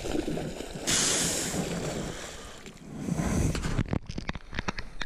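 Wind buffeting the microphone with a steady low rumble. About a second in comes a sudden loud rushing hiss that fades over a second, and near the end a quick run of sharp clicks.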